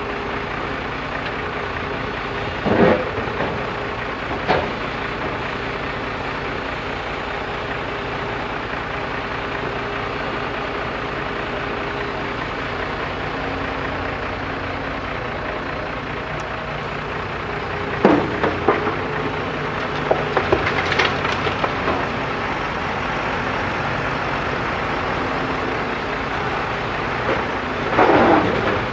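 JCB 3DX backhoe loader's diesel engine running steadily, with short loud clatters of the bucket working soil a few seconds in, again in a cluster about eighteen to twenty-two seconds in, and near the end.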